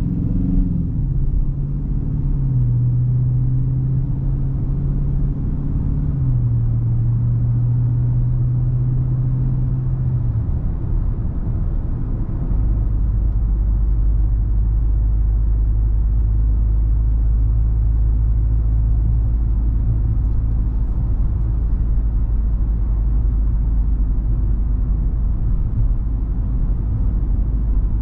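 Dodge Charger R/T's 5.7-litre V8 running on the road. The engine note shifts in pitch in a few steps over the first ten seconds, then settles into a steady deep rumble from about twelve seconds in.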